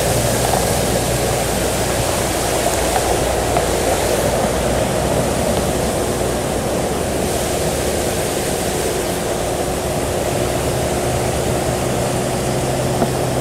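Floodwater rushing steadily across a road, with the low hum of a truck's engine underneath that fades as the truck drives off through the water.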